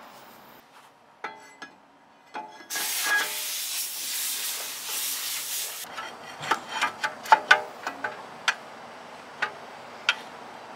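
Cast-iron brake rotor being handled and slid onto the wheel-hub studs: a couple of metallic clinks with a short ring, a steady hiss lasting about three seconds, then a run of sharp, irregular metal clinks and taps as the rotor is seated on the hub.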